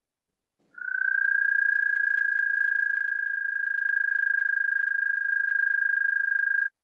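Recorded call of an American toad: one long, high-pitched trill at a steady pitch, rising slightly as it starts about a second in and lasting about six seconds before cutting off.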